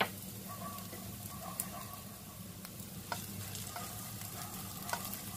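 Chopped onions sizzling softly in oil in a nonstick frying pan while a silicone spatula stirs them, with a few light clicks and scrapes of the spatula against the pan.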